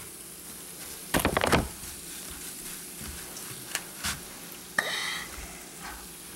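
Faint steady fizzing of a baking soda and vinegar mixture, with a quick cluster of knocks about a second in and a few later clicks as a knife is worked into an apple to make a hole, plus a brief high squeak.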